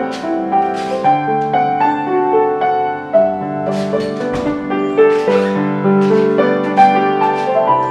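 Background piano music: a melody of held notes over chords.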